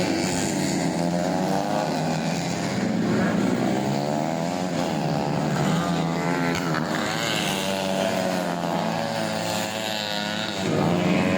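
Tuned four-stroke 125 cc underbone race motorcycles running, several engine notes overlapping and rising and falling in pitch as they rev.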